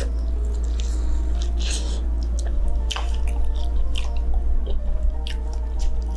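Close-up chewing and eating sounds of a person biting and chewing a piece of chicken, with short irregular mouth smacks and clicks, over quiet background music.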